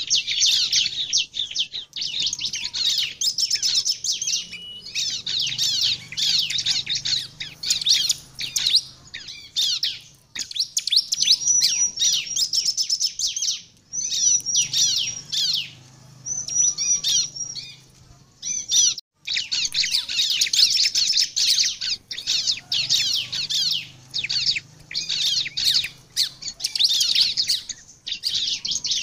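Bar-winged prinia (ciblek) singing a fast, high-pitched chattering song of rapid trills in long bursts, broken by short pauses.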